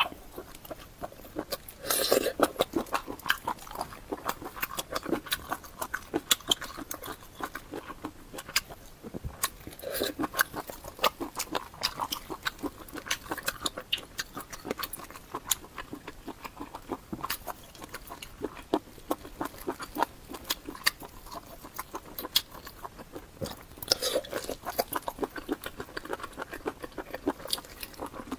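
Close-miked eating: a person chewing and biting food, with many wet mouth clicks and smacks at an irregular pace and a few louder bites, about two seconds in, around ten seconds in, and near the end.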